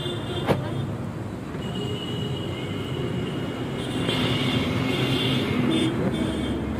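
Steady outdoor street noise with passing traffic: a low, even rumble, with faint voices in the background and a single click about half a second in.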